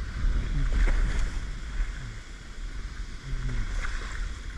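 Wind buffeting the microphone, a steady low rumble that rises and falls in strength, over a faint outdoor hiss.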